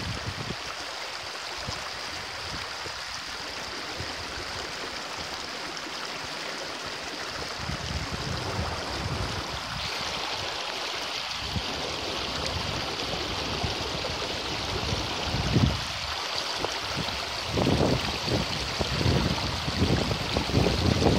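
Small rocky mountain stream running over boulders in a steady rush of water. Low gusts of wind buffet the microphone now and then, most strongly in the last few seconds.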